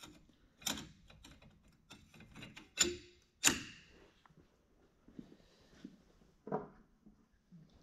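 Transmission parts being handled, giving four sharp metal clinks and knocks. The loudest comes about three and a half seconds in and rings briefly after it.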